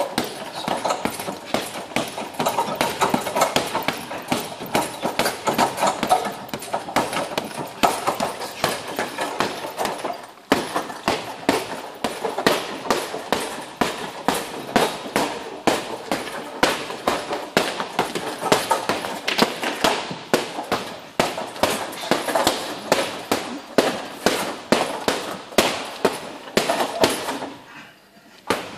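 Boxing gloves hitting a hanging heavy punching bag in quick combinations, a rapid, uneven run of punches landing several times a second.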